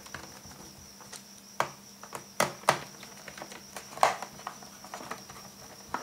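Small irregular clicks and ticks of a screwdriver turning a screw into a laptop's plastic back cover, with a few sharper clicks about two and a half and four seconds in.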